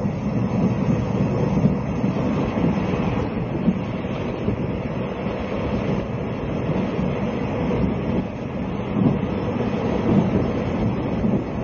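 Running noise inside a JNR Series 20 sleeper car while the train is under way: a steady rumble of the wheels on the rails, with a few slightly louder jolts.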